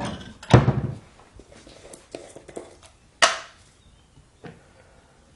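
A few separate knocks and thuds of kitchen things being handled: a heavy thud about half a second in, a sharp knock about three seconds in, and a lighter knock about four and a half seconds in.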